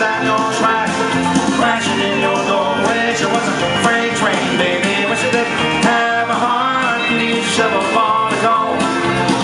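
Instrumental passage of an up-tempo country song played live, led by an electric guitar over a steady beat.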